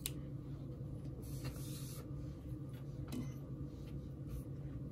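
Small cotton fabric pieces being handled: soft rubbing and rustling, loudest about a second in, with a few light taps, over a low steady hum.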